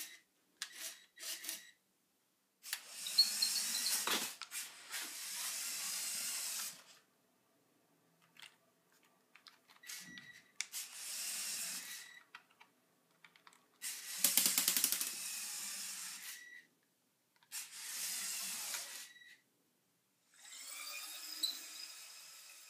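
Lego Power Functions electric motors of a motorized Lego Technic 42000 Grand Prix Racer whirring through their gearing in on-off bursts of one to four seconds, driven by IR remote, some bursts ending in a brief high whine.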